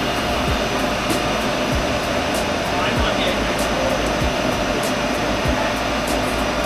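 Metalworking machine tool running steadily with a motor hum, and a faint regular tick about every 0.6 s that fits an interrupted cut or a rotating part.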